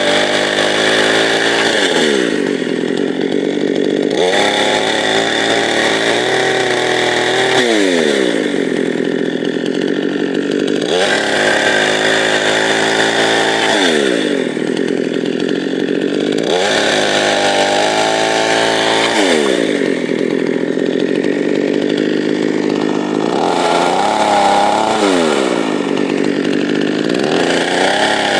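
Two-stroke chainsaw revved to full throttle in repeated spells of a few seconds, about five times, its pitch falling back between spells as it cuts firewood rounds one after another.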